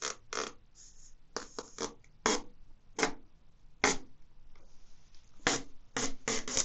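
The sealing strip of a new HP LaserJet toner cartridge pulled out in short tugs: about a dozen brief rasps and clicks of tape sliding out of the plastic cartridge, spaced irregularly.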